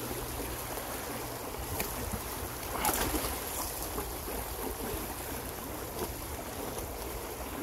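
Shallow stream rushing steadily over stones, with a low rumble underneath and a few faint knocks.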